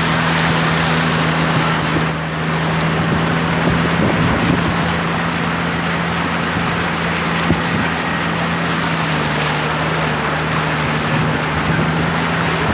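A 4x4's engine running with a steady drone over a constant rushing noise.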